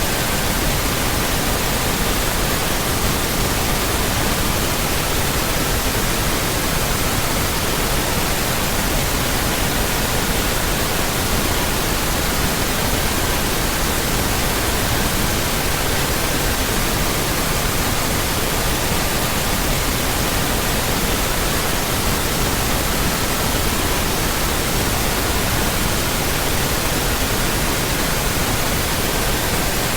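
Steady pink noise with faint pure tones laid under it, one at a time, switching among 1200, 1320, 1440 and 1555 Hz every few seconds.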